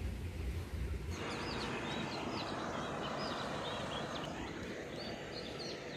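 After a second of low room hum, roadside ambience: small birds chirping over a steady rush of background noise that eases off about four seconds in.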